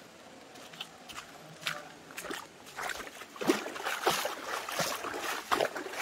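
Water splashing and sloshing in short, irregular strokes, sparse at first and busier and louder from about halfway through.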